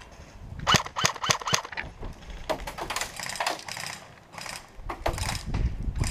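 Airsoft guns firing: a quick string of sharp cracks about a second in, then further rattly bursts of shots.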